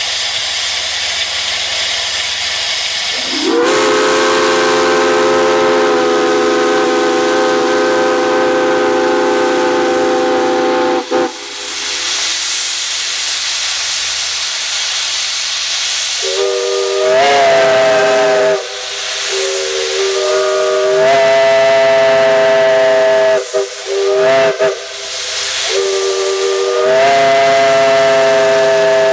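Steam whistles with steam hissing between blasts. A chime whistle sounds one long blast of several tones together; after a few seconds of hiss, a whistle with a different, higher chord blows a string of blasts, each sliding up in pitch as it opens.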